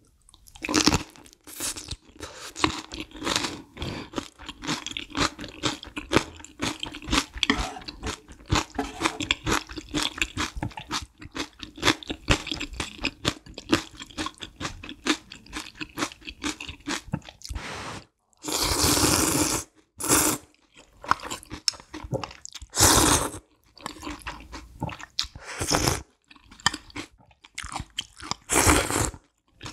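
Close-miked crunching and chewing of whole green chili pepper kimchi, many crisp crunches in quick succession. From about two-thirds through come several loud slurps of spicy ramyun kalguksu noodles and broth.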